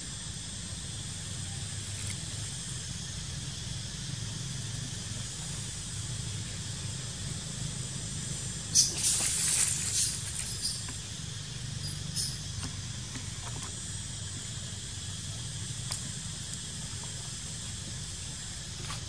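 Steady outdoor background hiss with a faint high drone. About halfway through comes a brief crackling rustle, with a single small click a few seconds later.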